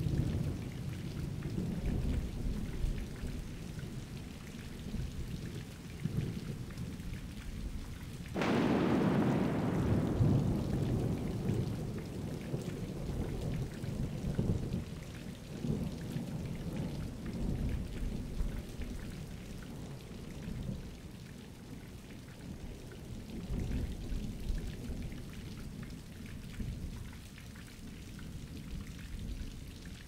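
Thunderstorm: steady rain with low rumbles of thunder throughout. About eight seconds in, a sharper thunderclap strikes, the loudest sound here, and dies away over several seconds into rumbling.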